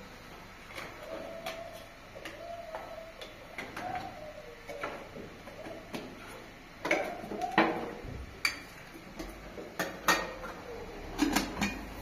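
Dishes and kitchen utensils clinking and knocking in irregular strikes, some ringing briefly, louder and more frequent in the second half.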